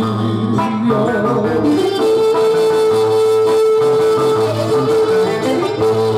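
Greek folk dance music with plucked string instruments over a pulsing bass; about two seconds in the melody holds one long note for a couple of seconds before moving on.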